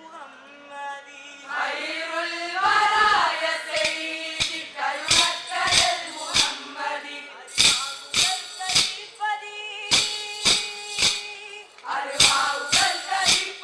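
Kolkali stick dance: the dancers' short wooden sticks clack together in rhythmic pairs and groups over singing. The clacks begin a little under three seconds in, after a sung opening.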